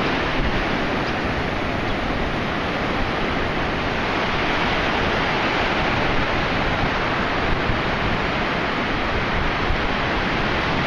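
Surf breaking and washing up a sandy beach: a steady rush of wave noise.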